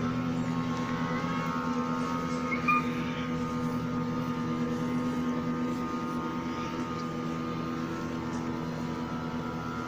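A steady mechanical hum at an even pitch, with a brief high chirp about two and a half seconds in.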